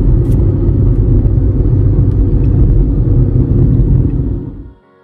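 Loud, steady low rumble of a moving vehicle, fading out about four and a half seconds in.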